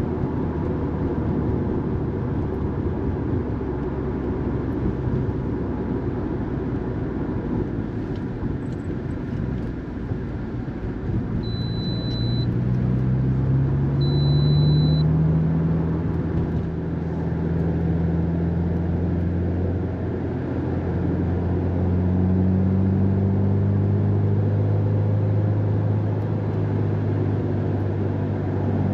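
Subaru WRX STI's turbocharged flat-four engine and road noise heard inside the cabin while driving. The engine note climbs in pitch under acceleration near the middle and again over the last third. Two short high beeps sound in between.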